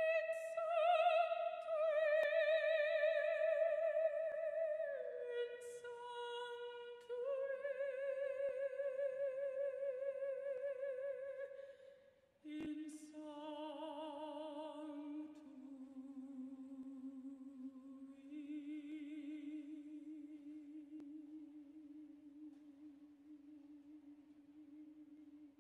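A single singing voice holding long, slow notes with a wide vibrato. About halfway through it breaks off with a click and carries on with lower held notes that gradually fade.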